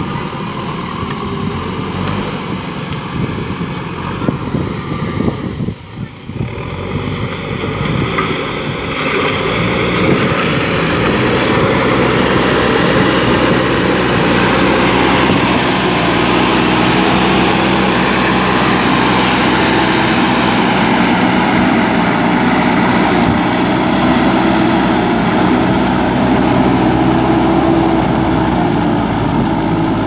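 JCB backhoe loader's diesel engine running under load as its front bucket pushes soil and gravel. It dips briefly about six seconds in, then runs louder from about ten seconds in.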